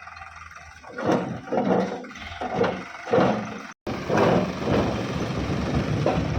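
Heavy diesel engine running, with several loud surges in the first half. The sound drops out for an instant just past the middle, then continues as dense engine noise.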